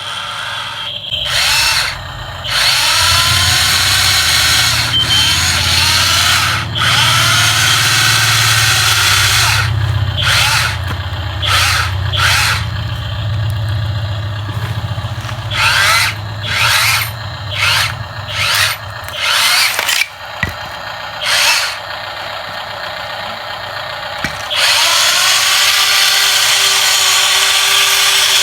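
Small electric motor whirring in repeated runs, its whine rising in pitch as it spins up, with long runs near the start and end and short bursts in between.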